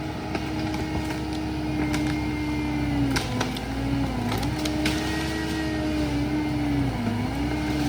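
A machine's engine running steadily, its pitch dipping briefly twice as it comes under load, with a few light metallic clanks.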